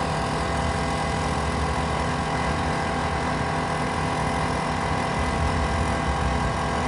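Dirt track race car engines running at a steady, unchanging level, a dense mix of many engine tones with no breaks.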